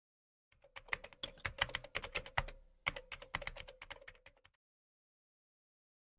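Typing sound effect: a quick run of keyboard-like clicks with a short break about two and a half seconds in, stopping about four and a half seconds in.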